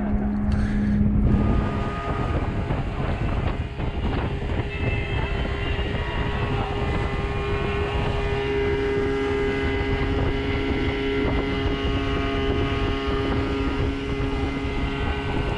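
Boat's outboard motor running steadily as the boat travels across the lake, with wind buffeting the microphone.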